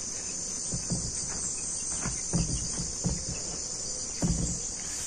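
Steady shrill chirring of insects, crickets or cicadas, throughout. Over it, a handful of soft knocks and clicks as a braided stainless flexible hose's nut is screwed onto a fitting in a plastic water drum.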